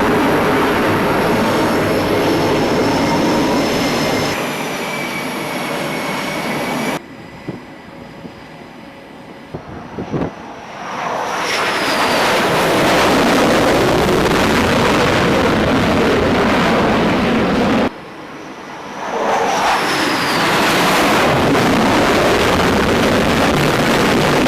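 Loud jet aircraft engine noise with a high turbine whine. It cuts off abruptly twice and swells back up each time, with a short falling whine as it builds.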